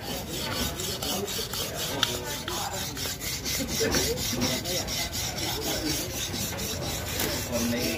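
A knife being sharpened on a whetstone: a rasping rub repeated in quick, evenly spaced strokes.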